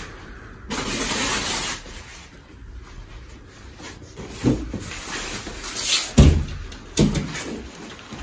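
Paper sheet on a treatment table rustling for about a second as it is smoothed out. Then three thumps and bumps as a person climbs onto the padded table and lies face down, the loudest about six seconds in.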